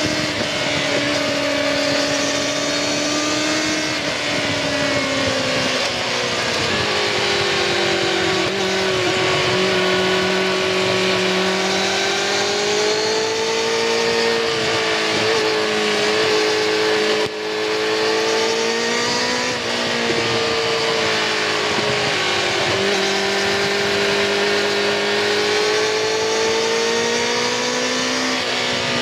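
2019 Kawasaki Ninja ZX-6R 636's inline-four engine through its stock exhaust, heard close to the exhaust while riding. The engine note rises and falls in pitch with the throttle, drops about five seconds in, and briefly falls in loudness about halfway through.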